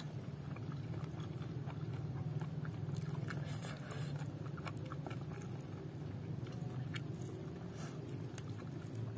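A person chewing a mouthful of food close to the microphone: irregular wet smacking and small crunching clicks, over a steady low hum.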